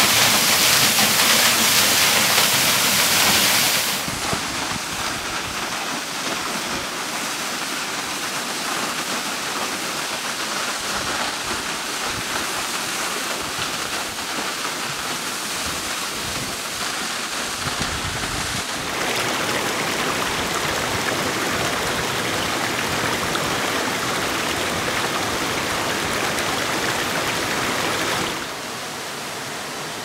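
Waterfalls pouring, a steady rush of falling water heard from one fall after another. It drops quieter about four seconds in, grows louder again after about nineteen seconds, and drops again near the end.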